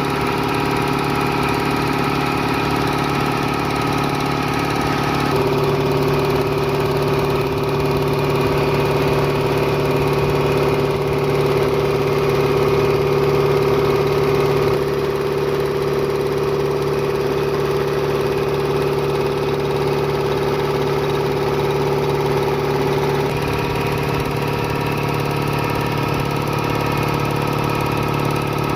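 HP.3-LT200 electric air compressor running steadily, a constant mechanical hum whose tone shifts slightly a few times.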